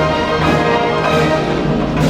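Orchestral background music with brass and a regular percussion beat about twice a second.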